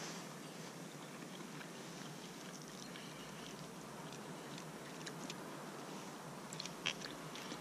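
A person eating fish: faint chewing with a few small clicks, over a steady background hiss.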